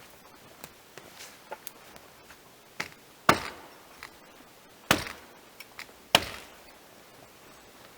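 Axe chopping wood: three loud, sharp blows about a second and a half apart in the second half, with lighter knocks and clicks between them.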